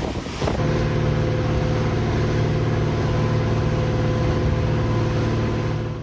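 A boat's engine running steadily with a constant low hum, which comes in about half a second in.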